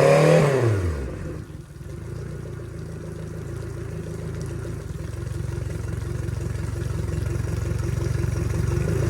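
2004 Yamaha 150 hp outboard motor coming down off a rev, its pitch falling quickly in the first second and a half, then idling steadily with a low, even drone.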